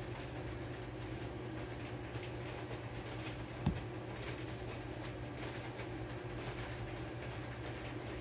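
A steady low mechanical hum, with one short low thump about three and a half seconds in.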